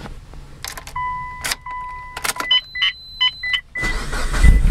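Ignition key clicking into place and turning, with a steady dashboard chime and then a run of electronic beeps. About four seconds in, the Mitsubishi Lancer Evolution VIII's 2.3-litre stroker 4G63 engine on E85 cranks and fires almost at once from dead cold with no throttle, rising to a loud idle.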